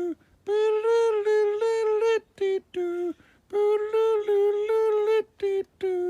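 A high voice humming a simple melody in held notes, phrase after phrase with short breaks between them.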